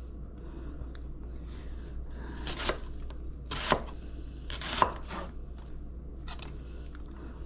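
Knife chopping onion on a cutting board: light irregular taps, with three firmer knocks about a second apart in the middle, over a low steady hum.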